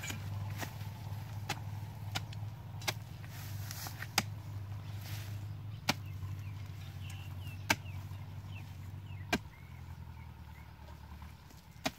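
Metal hoe blade chopping into hard dry soil: about ten sharp strikes at irregular spacing, the loudest near four and near eight seconds in. A steady low hum runs underneath and drops away about nine seconds in.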